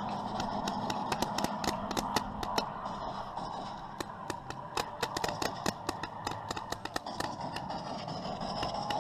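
Engines of several model aircraft drone steadily overhead, one rising in pitch near the end. Throughout, there is a rapid, irregular string of sharp cracks, several a second.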